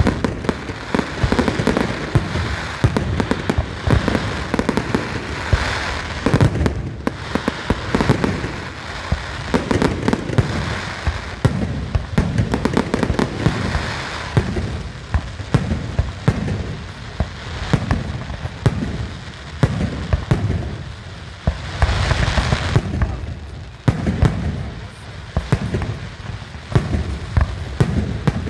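Fireworks display: a continuous run of booming shell bursts and crackling, with many bangs in quick succession and an especially dense cluster about three quarters of the way through.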